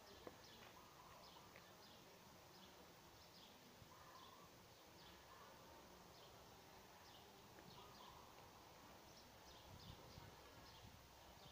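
Near silence: faint outdoor ambience with short, high chirps repeating irregularly, a few a second.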